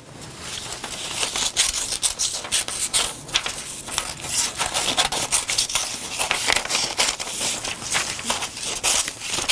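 Scissors cutting through a sheet of lightweight foundation paper: many quick snips in a row, with the paper rustling as the excess is roughly trimmed away.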